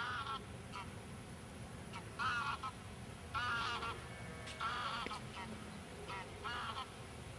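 Geese honking, a series of about six short calls spaced a second or two apart, over a steady low rumble.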